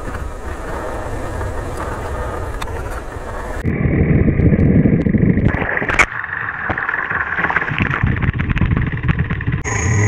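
Motorcycle engine running while riding, under a steady rushing noise; the sound changes abruptly about four and six seconds in, getting louder at the first change.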